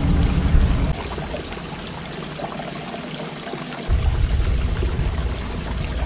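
Water trickling and splashing from a small stone garden fountain into its basin. A low rumble underneath cuts out about a second in and returns about three seconds later.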